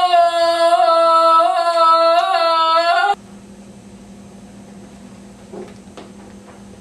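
A boy's long, held scream at one steady pitch, cut off suddenly about three seconds in. Then a quiet, steady low hum with a few faint knocks.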